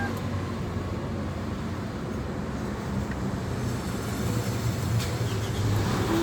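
Toyota Camry engine running with a steady low drone, the growling "ngorok" (snoring) noise the car was brought in for, which the mechanic traces to a failing water pump.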